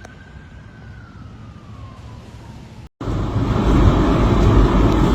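A distant siren wails once, rising slowly and then falling, over a low rumble. About three seconds in, the audio cuts to a loud, steady rushing noise.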